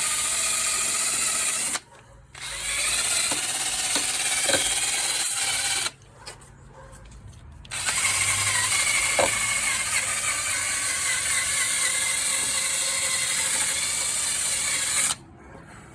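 Power wire wheel spinning and scrubbing a metal ATV brake part clean. It runs in three stretches, stopping briefly about two seconds in and again for about two seconds around six seconds in, and stops shortly before the end.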